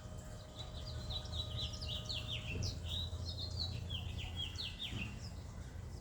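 A songbird singing one long, fast song of quick downward-slurred notes, lasting about four and a half seconds, over a low steady background rumble.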